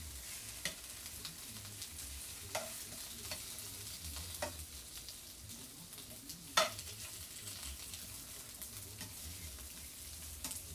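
Red pepper pieces sizzling in olive oil in a frying pan, with several sharp clinks of metal tongs against the pan as the pieces are turned; the loudest clink comes about two-thirds of the way in.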